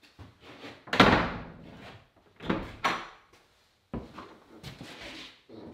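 Wooden pre-hung interior door being swung and shut in its new frame: a series of knocks and thuds as the door meets the jamb and latches. The loudest shut comes about a second in, with several more over the next few seconds.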